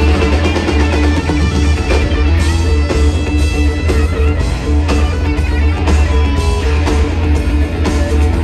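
Rock band playing live: electric guitar lines over a heavy, booming bass and a steady drum beat.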